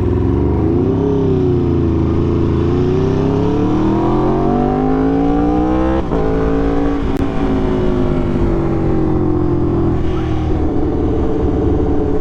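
Aprilia RSV4 sport motorcycle's V4 engine under acceleration: the revs climb for about five seconds, drop sharply about six seconds in as it shifts up, then ease down and settle.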